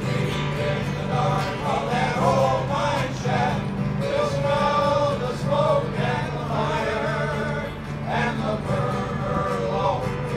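Male chorus singing in harmony, with low held notes underneath.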